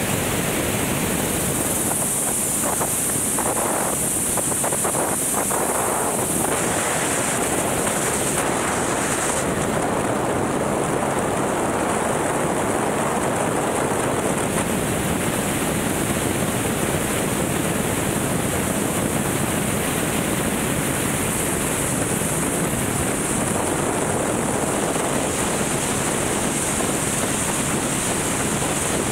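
Steady rushing noise of wind on the microphone of a camera riding on a helicopter in flight, with the helicopter's running noise mixed in.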